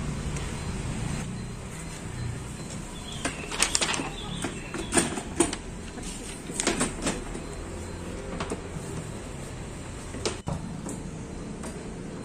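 Plastic drawer of an Olymplast ODC 03 M cabinet being slid onto its metal drawer-slide rails and roller wheels, giving a run of sharp plastic clicks and knocks, thickest in the middle few seconds, over a steady low hum.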